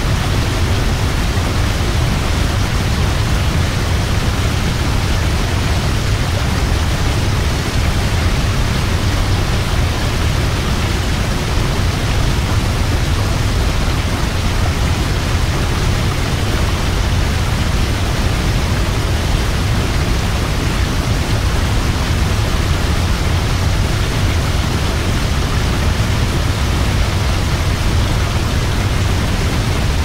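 Large waterfall: water falling in a steady, unbroken rush, heaviest in the deep low end, with no change in level.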